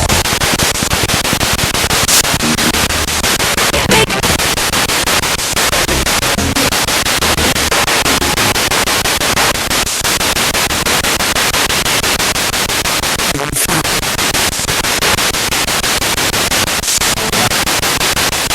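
Spirit box radio scanning through stations: loud continuous static, chopped into rapid even steps by the sweep, with brief snatches of broadcast sound.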